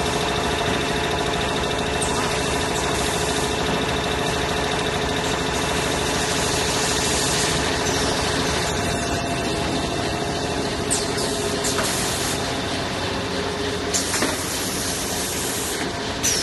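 Semi-automatic kitchen towel roll packing machine running: a steady mechanical hum with several steady tones, and a few short sharp clicks in the second half.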